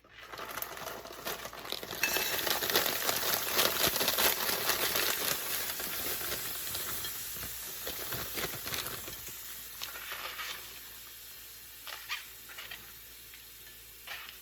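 Frozen riced cauliflower tipped from its bag into hot sesame oil in a frying pan: a few crackles from the bag, then a loud sizzle that starts suddenly about two seconds in and slowly dies down as the frozen vegetables chill the oil. A few light knocks near the end.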